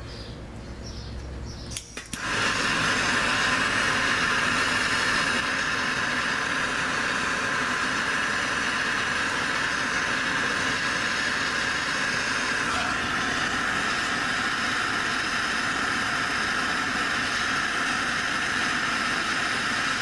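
Hand-held MAPP gas torch lighting with a click about two seconds in, then its flame hissing steadily as it heats a padlock.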